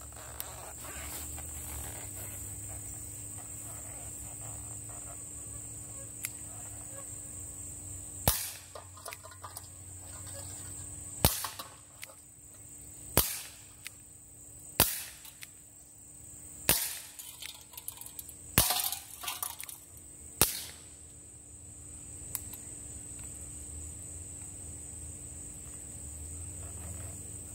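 A CO2 BB revolver firing about seven sharp pops, one roughly every two seconds, starting about eight seconds in.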